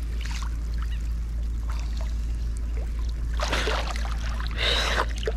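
Water splashing and sloshing in two short bursts, one a little past halfway and one near the end, over a steady low rumble.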